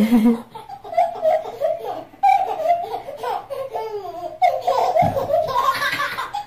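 A young child laughing again and again, high-pitched.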